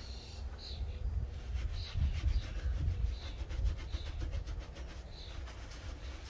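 A brush scrubbing a mesh sneaker in quick, repeated strokes, over a steady low rumble.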